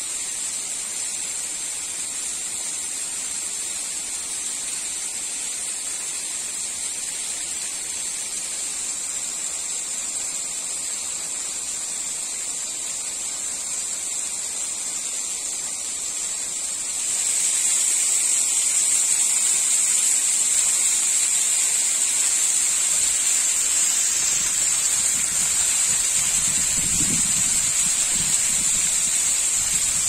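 Thin ephemeral waterfall falling down a rock face onto stones: a steady high hiss of splashing water, which grows louder about halfway through.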